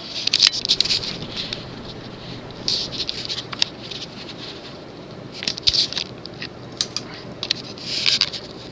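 1941 Emerson Roundnose ceiling fan's reversible shaded-pole motor running with a steady low hum, under irregular scratchy rustling bursts and a few sharp clicks.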